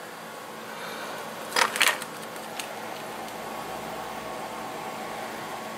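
Two quick clatters of objects being handled about a second and a half in, then a faint click, over a steady low hum.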